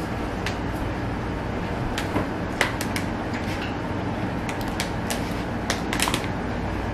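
Thin plastic water bottle crackling and clicking as it is handled and drunk from: a scatter of short sharp crinkles about two seconds in, and again near the end. A steady low hum runs underneath.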